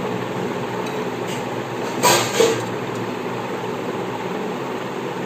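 A metal serving spoon scrapes and clinks briefly against the rice cooker's inner pot about two seconds in, as biryani is scooped out. A steady background hum runs underneath.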